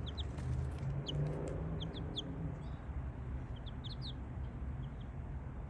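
Young miniature chickens peeping: short high cheeps scattered throughout, several in quick pairs, with a softer lower trill about a second in, over a steady low rumble.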